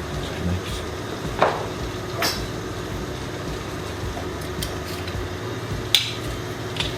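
A few light knocks and clicks of kitchen utensils and dishes being handled, over a steady low hum.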